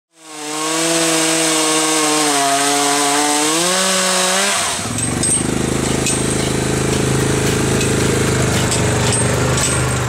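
Stihl MS 391 chainsaw running under load for the first four and a half seconds, its pitch wavering slowly and stepping up near the end. It then gives way to a lower, steady engine drone with faint clicks, which fits the ATV towing the log.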